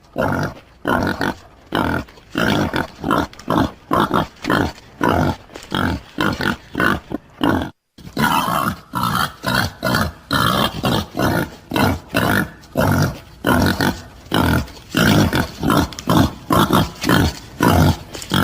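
Wild boar grunting in a rapid run of short grunts, about two a second, with a brief break about eight seconds in.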